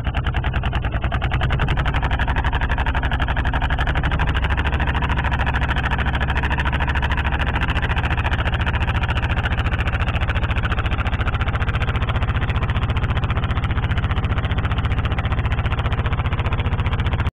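A small fishing boat's engine running steadily under way, with a fast, even throb.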